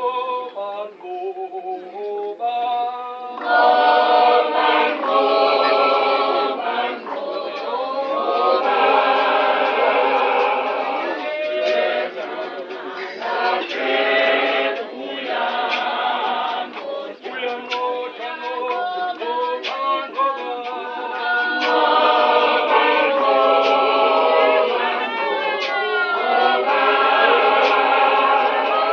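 A church congregation of men and women singing together, unaccompanied. The singing swells into full, loud phrases and thins out between them.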